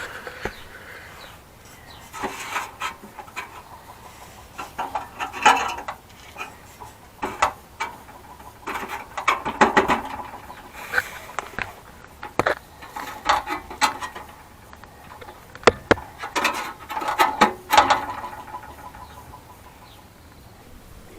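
Tinny metal rattling from under a Toyota Corolla Verso II, in about ten irregular bursts with short pauses: the saucepan-like 'casserole' rattle of a loose metal part on the underside of the car.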